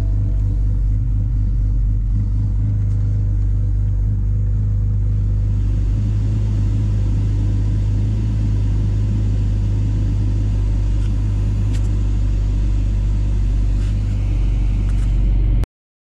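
BMW 630i's 3.0-litre petrol straight-six idling, heard from inside the cabin as a steady low hum. It is warming up to test the newly replaced heater water valve. About six seconds in, a rush of air from the heater vents joins it as the climate control is turned up, with a few light clicks near the end.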